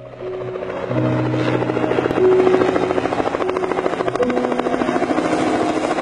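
Helicopter rotor chopping in a rapid, even beat, with soft piano music underneath.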